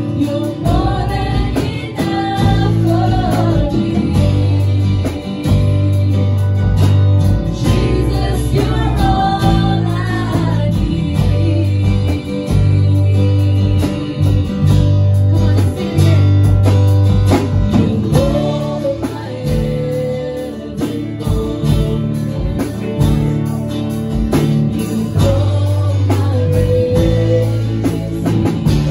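Live praise-and-worship band playing: women's voices singing the melody over acoustic guitar, bass guitar and a drum kit.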